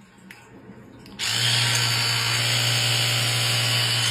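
A small electric motor starts abruptly about a second in and keeps running steadily with an even whir and a low hum.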